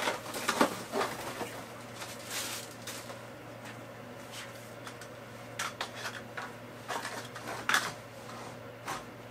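Cardboard boxes and paper packing being handled and unpacked: rustling and crinkling with small knocks and clicks, in bursts that are busiest in the first second or so and again around six and eight seconds in. A steady low hum runs underneath.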